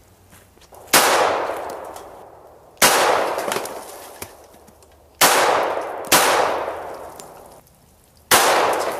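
Five shots from a Glock 21 pistol firing 230-grain .45 ACP rounds, spaced a second or two apart with two close together just past the middle, each crack trailing off in an echo of about a second and a half.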